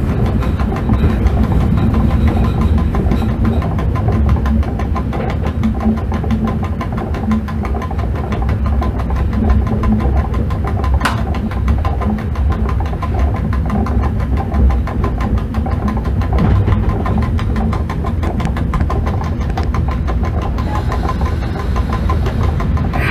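Running noise of an ET22 electric freight locomotive heard from its cab at low speed: a steady low rumble of wheels on rail and the locomotive's machinery, with a single sharp click about eleven seconds in.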